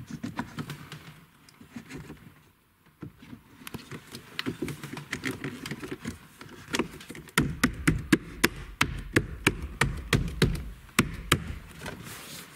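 Sharp clicks and taps of plastic dashboard trim and hand tools being handled while a car radio is fitted into the dash. They are sparse at first, then come quickly over the last five seconds with a low rumble under them.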